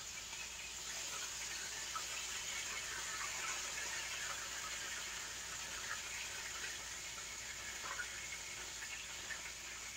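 Chicken wings frying in hot oil: a steady sizzle with scattered small crackles.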